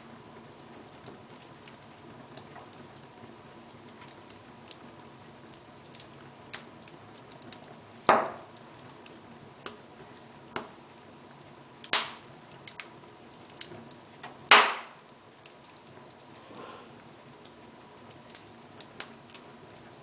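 Wood fire burning in an open fireplace, crackling with a steady soft hiss and scattered small ticks, and three loud pops at about eight, twelve and fourteen and a half seconds in.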